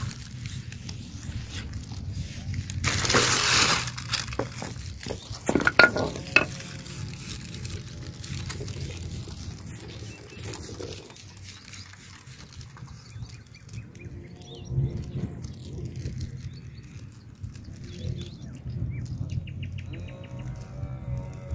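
Stones and pebbles scraping and clattering as a hand digs out and handles rough rocks on a pebble bed. About three seconds in comes a loud rush of noise lasting about a second, and a few sharp knocks follow around six seconds. After that the handling is quieter.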